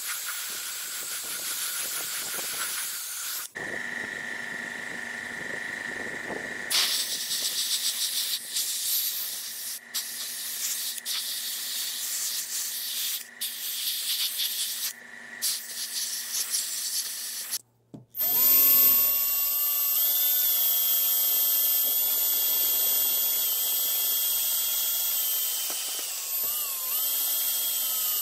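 Paint spraying hisses in several bursts with short breaks between them. About two thirds of the way in, a power drill spins a foam polishing pad with a steady, louder whine that shifts in pitch a few times as it buffs the plastic.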